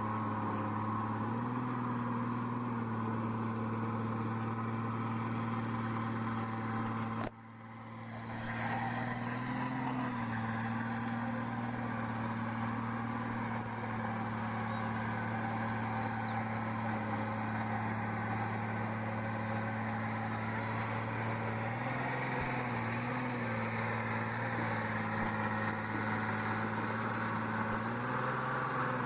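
Engine of a truck or heavy machine running steadily at a low, even pitch, rising slightly in pitch a few times as it takes a little throttle. The sound drops out abruptly about seven seconds in and comes back over about a second.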